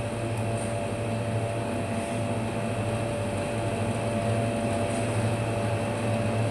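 Steady electric-motor hum with a faint steady higher tone over it, unchanging throughout.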